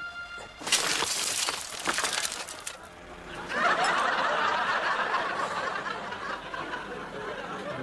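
A car's side window glass smashing: a clattering crash of breaking glass lasting about two seconds. From about three and a half seconds in, studio audience laughter follows.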